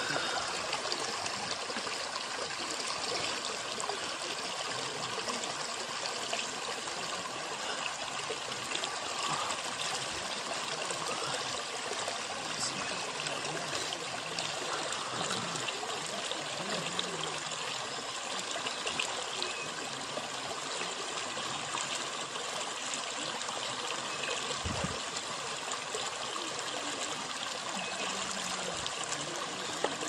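A small waterfall's thin stream of water running steadily down a rock face into a shallow rocky channel.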